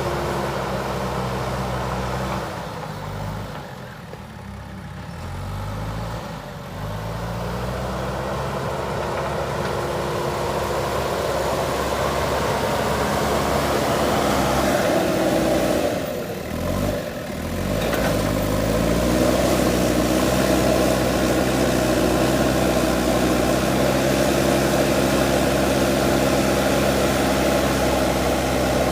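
Backhoe loader's diesel engine running steadily, its revs dipping and climbing back twice, about three seconds in and again about sixteen seconds in, then holding higher.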